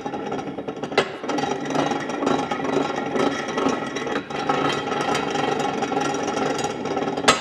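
Dake 1-1/2 B arbor press being worked by spinning its handwheel, its gearing running with a steady mechanical whir and rattle. A sharp click comes about a second in and another near the end.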